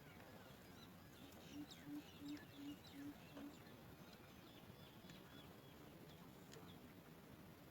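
Faint bird calls: a run of six short, evenly spaced low hoots, with scattered thin high chirps.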